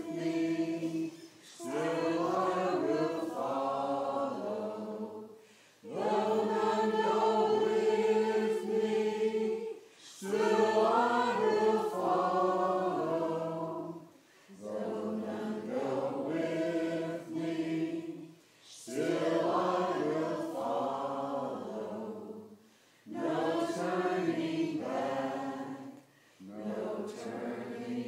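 A small church choir singing together unaccompanied, in slow phrases with brief pauses for breath between them and some notes held for several seconds.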